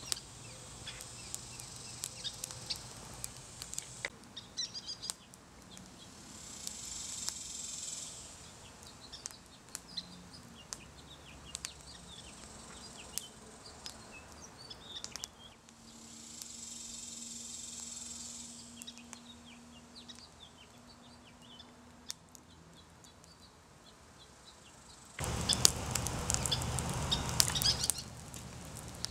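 Small fire of dry sticks crackling with scattered sharp pops, with birds chirping in the background. Near the end, a loud rushing noise lasts about three seconds.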